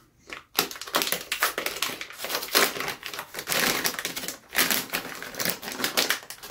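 Silver anti-static packaging bag crinkling and crackling as it is pulled open by hand, in a dense run of crackles that starts about half a second in.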